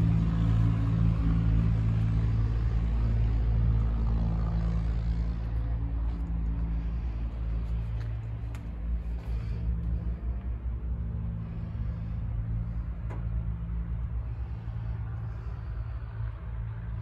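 Caterpillar 972M XE wheel loader's diesel engine idling with a steady low hum, growing somewhat fainter over the first several seconds.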